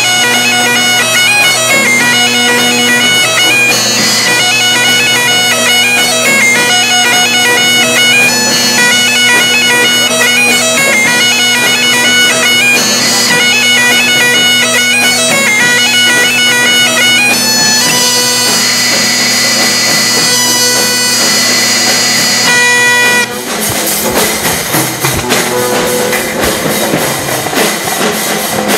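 Great Highland bagpipes playing a fast tune over steady drones, with drums behind them. About 23 seconds in the pipes stop and the drums carry on.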